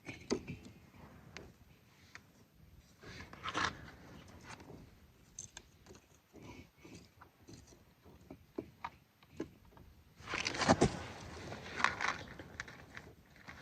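Scattered small clicks, knocks and rustles of camping gear being handled, with a louder stretch of rustling and scraping about ten seconds in.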